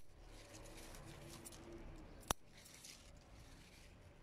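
Scissors snipping chili leaves: one sharp snip about halfway through, otherwise only faint background sound.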